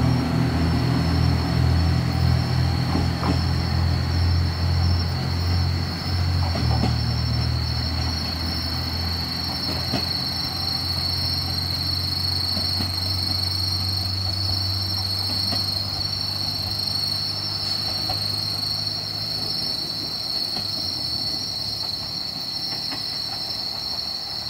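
Single-car diesel railcar pulling away and receding down the line. Its low engine drone is loud at first, fades over the first several seconds and dies away near the end, with a few faint clicks from the wheels. Insects keep up a steady high trill throughout.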